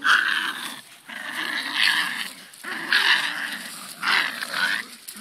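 Staffordshire Bull Terrier puppies growling in play during tug-of-war over a rope toy, in about four rough bursts of roughly a second each.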